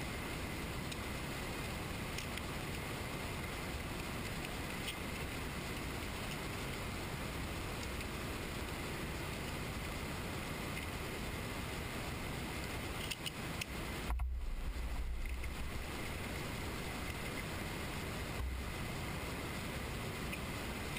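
Steady background hiss with faint clicks of small steel parts and a hex key being handled. A dull low bump comes about two-thirds of the way through, and a smaller one near the end.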